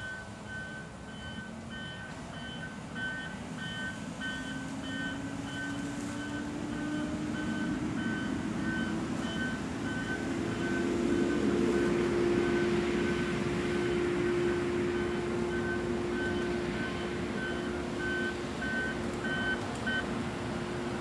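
Wheeled logging machine's diesel engine running past, its pitch rising and then holding steady, loudest about halfway through, with a backup alarm beeping that stops near the end: the machine is travelling in reverse.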